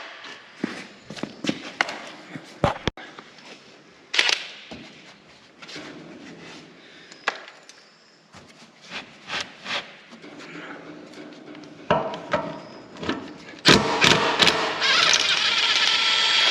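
Metal socket and hand tools clinking and knocking as they are handled on a machine's wheel nuts. About fourteen seconds in, a louder steady mechanical noise runs for about three seconds.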